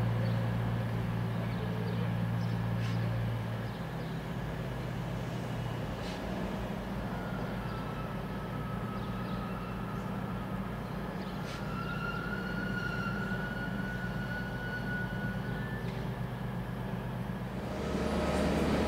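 A train at a station platform running steadily, with a low engine hum that shifts in pitch a few seconds in and again near the end. A faint high whine rises slightly through the middle.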